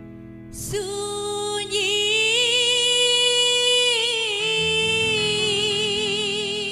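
A woman sings a dangdut melody, coming in about half a second in and holding long notes with a wide vibrato, over sustained chords from a Korg electronic keyboard.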